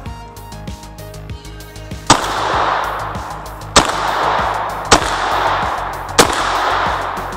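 Four gunshots from a hunting gun fired in quick succession, a second or two apart, each followed by a long echo rolling through the forest.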